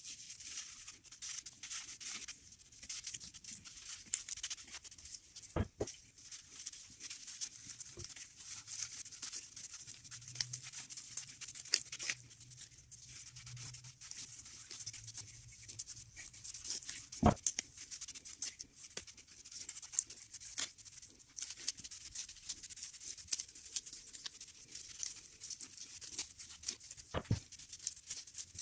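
A small sponge scrubbing a finish onto wooden pistol-crossbow parts, a scratchy rubbing with small clicks, broken by three sharp knocks of wood on the bench.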